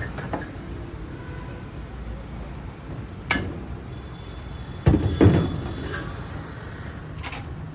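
Steady street background noise, with a sharp knock about three seconds in and two louder thuds in quick succession around five seconds, then a fainter knock near the end.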